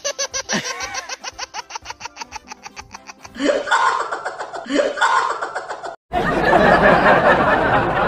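Laughter in quick, evenly spaced bursts over background music, with a louder noisy stretch in the last two seconds.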